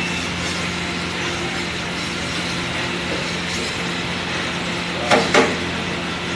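Metal ladle stirring bhaji on a large flat tawa, knocking against the griddle twice in quick succession about five seconds in, over a steady hum and hiss.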